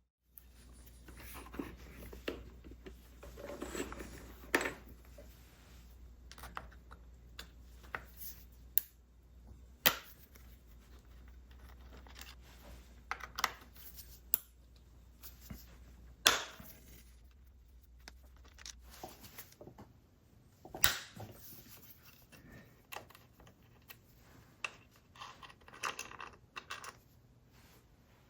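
Scattered metal clicks, knocks and clatter of tools and small parts being handled, over a steady low hum that stops about two-thirds of the way through.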